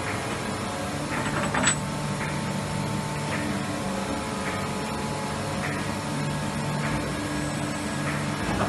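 A 2006 Vogtland HPC Flex V-200 twin-spindle CNC horizontal machining center running, a steady machine hum from its drives. Faint ticks come about once a second, with a sharper click a little under two seconds in.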